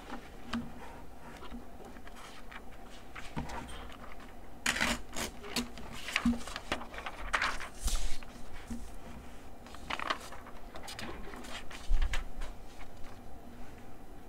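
Sheets of legal-pad paper rustling as they are handled and moved across a desk, in several short bursts, with a couple of dull knocks as the pad is set down.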